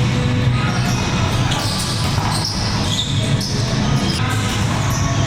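Volleyball being played: ball hits and bounces on a court floor, amid steady sports-hall noise.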